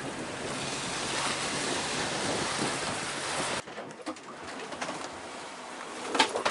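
Wind and breaking sea rushing steadily past a sailboat at night, cutting off suddenly about three and a half seconds in. Then the quieter cabin of the boat in heavy following seas, with scattered knocks that turn into a rapid series of loud knocks and bangs near the end.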